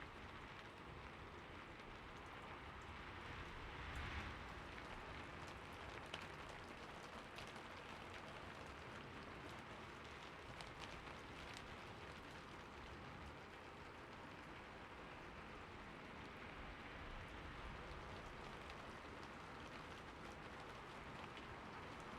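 Steady rain falling, a soft even hiss with scattered individual drops ticking through it, swelling slightly about four seconds in.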